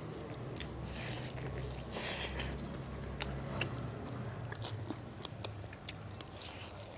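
Close-miked mouth sounds of people biting and chewing chicken drumsticks: wet smacking and small clicks, with a few short hissy sucking or slurping sounds.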